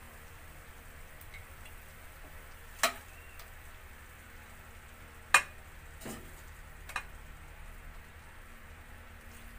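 A metal spoon scooping pieces of sticky soy-glazed pork belly out of a stainless steel pan, with four sharp clinks of metal on the pan or plate, the loudest about five seconds in. Underneath, the sauce gives a faint steady sizzle in the still-hot pan.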